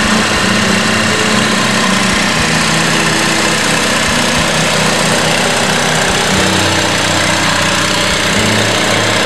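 Onan Emerald Plus 5000 RV generator set running steadily, loud and even.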